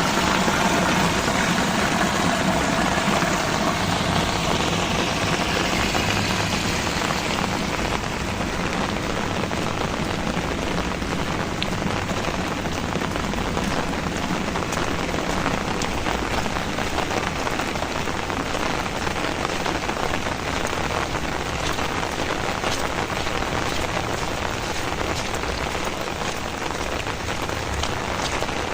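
Heavy rain falling steadily, a dense hiss of many drops on surfaces. A low engine-like hum fades away over the first several seconds.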